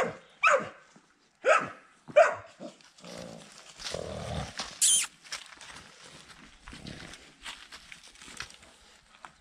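Dog barking: four short, loud barks in the first two and a half seconds, followed by a lower, longer sound about four seconds in and a brief sharp noise about five seconds in.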